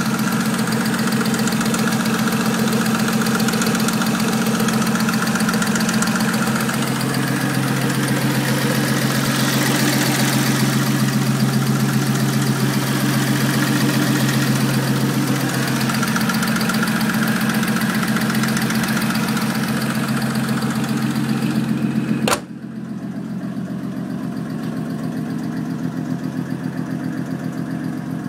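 2001 Audi S4's 2.7-litre twin-turbo V6 idling with a loud, rapid ticking from the driver's side of the engine, of unknown cause. About three-quarters of the way through there is a sharp click and the sound turns suddenly quieter and duller.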